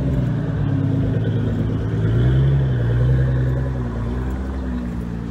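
Car engine running, its pitch rising and swelling around the middle, then falling back and fading toward the end.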